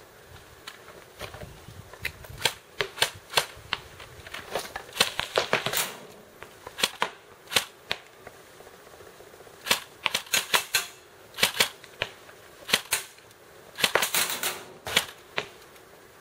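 Airsoft gun firing: sharp pops in irregular singles and quick strings, with the densest runs about five, ten and fourteen seconds in.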